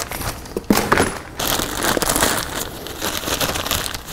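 Cardboard box holding a new replacement CV axle being opened, with packaging crinkling and tearing as the axle is unpacked. A few sharp clicks come first, then a denser stretch of rustling.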